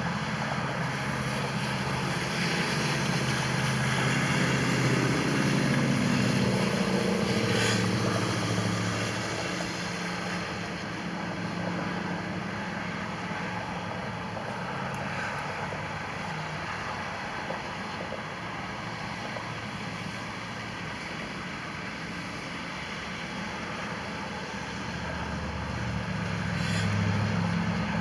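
Motor vehicles driving past: an engine hum swells and drops in pitch as one goes by in the first several seconds, traffic noise stays low through the middle, and another vehicle approaches near the end.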